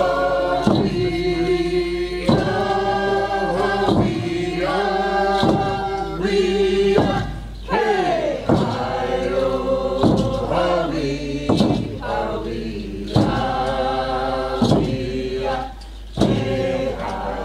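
A group of voices singing a chant together in long phrases, over a single drum stroke struck steadily about every second and a half.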